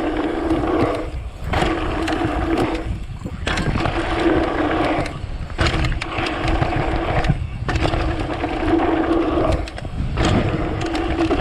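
Mountain bike descending a dirt trail at speed: the rear freehub buzzes in a steady whir while coasting and cuts out for brief moments several times, over heavy wind rumble on the microphone and the rattle of tyres and bike on the trail.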